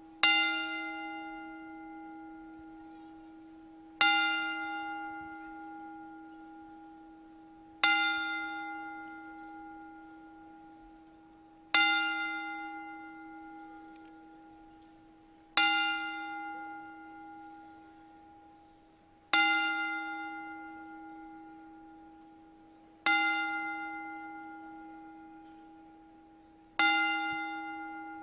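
A bell tolled slowly, struck eight times at even intervals of about four seconds, each strike ringing out and fading before the next: a ten-bell salute in memory of the dead, with the arena otherwise silent.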